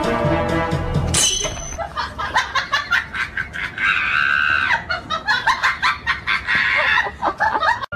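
Background music that cuts off about a second in, followed by a rapid run of short high-pitched animal calls, with one longer held call about four seconds in.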